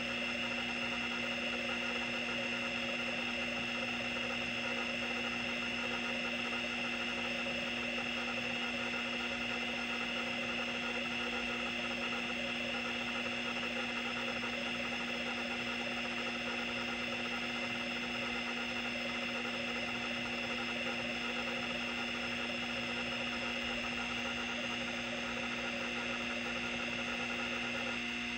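Open Seagate ST-212 MFM hard drive running with its cover off: a steady spindle hum and high whine, under a rough continuous buzz from the stepper-driven head arm seeking back and forth during a random-seek test. The buzz thins out near the end as the test finishes. The drive is damaged and can no longer store data.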